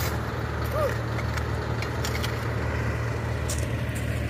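Steady low drone of a large diesel engine running at idle, with a few faint clicks over it.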